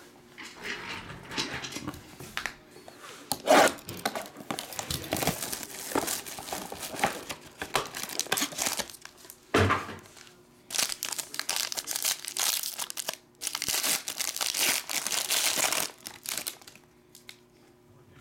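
The silver foil wrapper of a trading-card pack and other card packaging crinkling and tearing as they are opened by hand. The crinkling comes in irregular bursts, with a couple of sharp rips.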